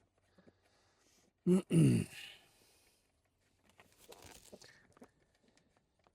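A short burst of a man's voice, two quick pulses about a second and a half in, then faint rustling and light clicks of hands working in a car interior.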